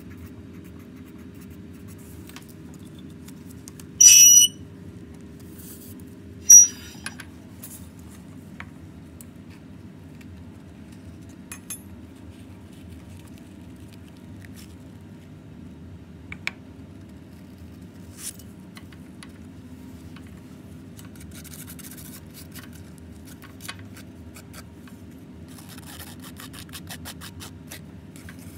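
Electronic beep from an analytical balance about four seconds in, then a second, shorter beep a couple of seconds later, over a steady low hum. Near the end come scattered light clicks and a rustling scrape of a metal spatula on filter paper.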